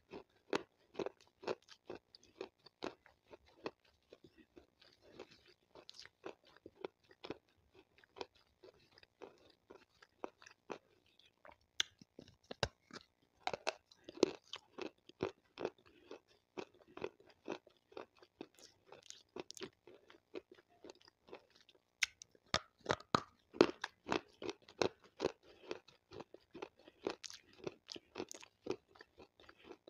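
Close-miked chewing of water-soaked white slate stone: many crisp crunches in quick succession as the soft stone is bitten and ground between the teeth. The crunching is busiest and loudest about three-quarters of the way through.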